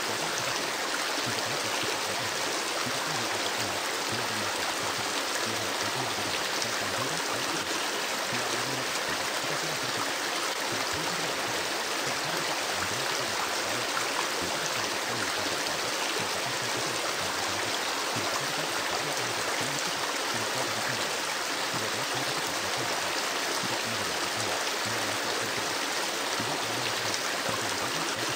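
Steady river ambience: flowing, rushing stream water that runs on without a break.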